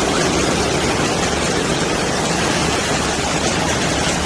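Heavy rain and hail pouring down, a steady, dense hiss with no let-up.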